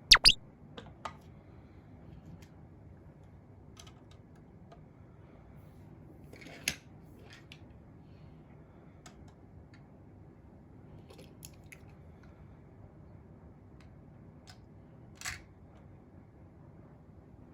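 Quiet room tone broken by a couple of loud, sharp clicks at the very start, then scattered small clicks and taps, the most noticeable about six and a half and fifteen seconds in.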